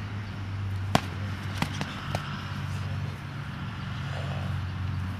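Foam-padded sparring weapon strikes knocking against a shield: one sharp hit about a second in, then two lighter hits over the next second, over a steady low hum.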